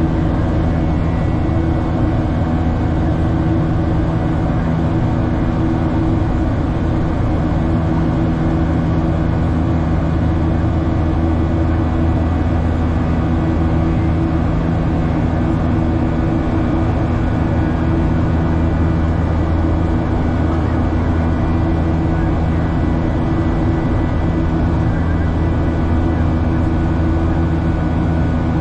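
Steady cabin noise inside a Boeing 737-800 in the climb: its CFM56 jet engines drone with a few steady low hums under the constant rush of airflow.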